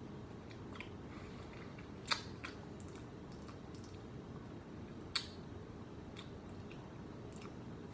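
Faint wet mouth clicks and lip smacks as bourbon is worked around the mouth during tasting, over a low steady room hum; the two loudest clicks come about two and five seconds in.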